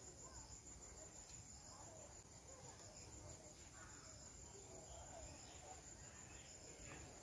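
Near silence with a faint, steady high chirring of insects.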